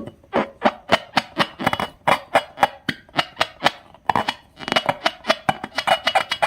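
Upbeat background music of quick plucked-string notes in a bouncing rhythm, about four to five notes a second.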